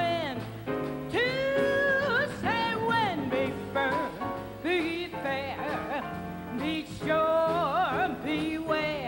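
A woman scat singing a jazz improvisation: wordless syllables leaping quickly between pitches, with a few held notes sung with vibrato, over a walking double bass and drums.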